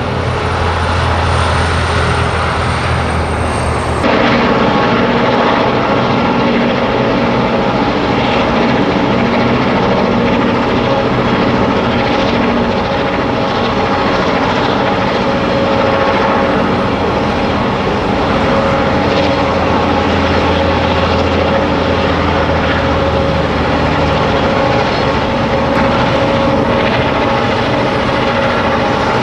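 Vintage Alco-engined diesel locomotives running, a loud steady engine drone with a low hum underneath. The sound changes abruptly about four seconds in.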